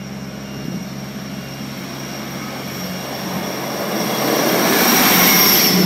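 A Class 158 diesel multiple unit approaching and running past at a level crossing. Its diesel engine drone is steady at first, then the passing train grows louder from about three and a half seconds in, loudest near the end.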